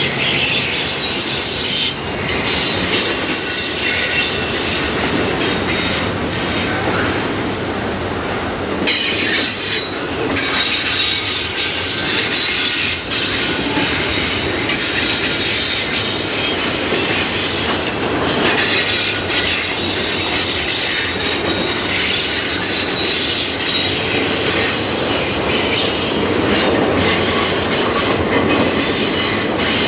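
A train's railway cars rolling past, their steel wheels squealing against the rails in several high tones that come and go, over a steady rumble and clatter of the wheels.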